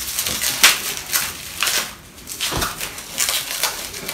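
Scattered light clicks and rustles of packaging and small objects being handled on a tabletop.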